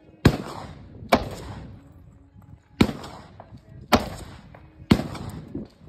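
Five gunshots fired at uneven intervals, about one to one and a half seconds apart, each trailing off in a short echo.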